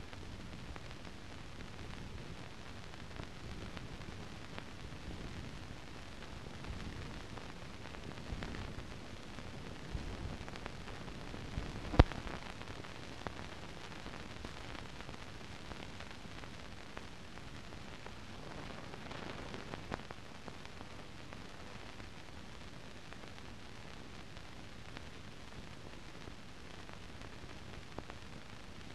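Steady hiss of a blank soundtrack on silent newsreel film, with a few faint pops and one sharp click about twelve seconds in.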